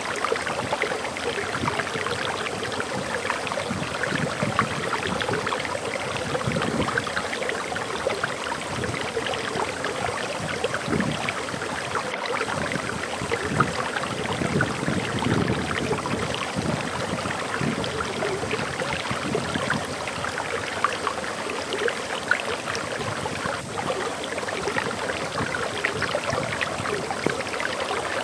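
Water streaming and splashing over a small waterfall: a steady, dense babbling rush.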